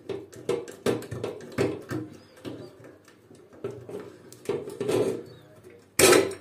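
Irregular clicks and knocks from hands and tools handling the water heater's thermostat and electrical fittings, with one loud clunk about six seconds in.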